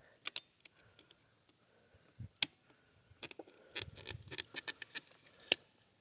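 Scattered small clicks and taps, with a few soft low thumps, from hands handling the outboard's VRO fuel pump and its fittings as it is pulled, dripping fuel. The clicks are irregular, thickest a little past halfway, with single sharper clicks near the start, in the middle and near the end.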